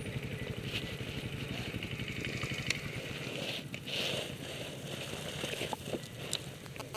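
Trial motorcycle engine running at low revs with a rapid even pulse, with a few knocks around three seconds in as the bike goes over; the engine keeps ticking over afterwards.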